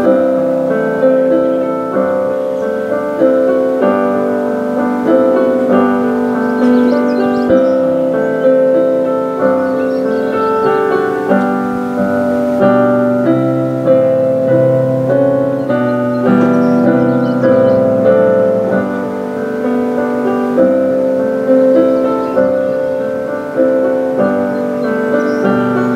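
Piano music: a slow piece of notes and chords struck about once a second and left to ring out.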